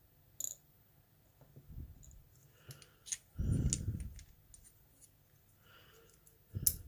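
Sparse small metallic clicks and taps of lock pins being handled as the pin stacks are taken out of a disassembled Sargent pin-tumbler lock cylinder, with a soft, dull knock of handling about three and a half seconds in.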